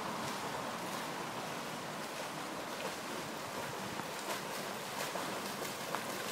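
River water running steadily, with a Chesapeake Bay retriever–springer spaniel cross splashing as it swims; the splashes come more often from about four seconds in.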